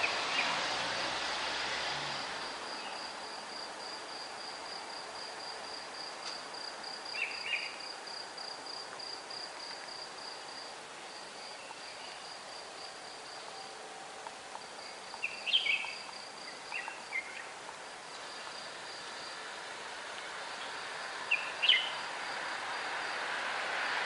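An insect's steady, rapidly pulsed high trill, with a few brief bird chirps at dawn, over a wide background hum of city noise that grows louder near the end.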